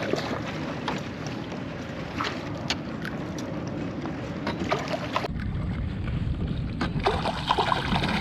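Water sloshing and splashing around a fishing kayak, with scattered small clicks and knocks. About five seconds in, the sound turns duller and heavier in the low end.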